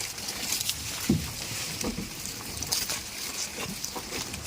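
Goats giving several short, low, falling calls, the loudest about a second in, over a steady high hiss.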